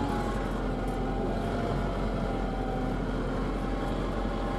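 Renault Ceres 95X tractor engine running steadily under ploughing load, heard from inside the cab.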